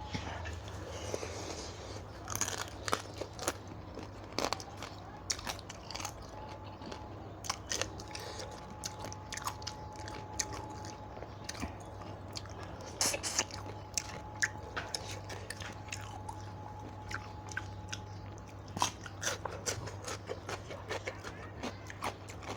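A person eating close to the microphone, chewing and crunching in irregular bites, with sharp mouth clicks and smacks. The food is a spicy pounded seafood salad with Isan sausage and raw vegetables.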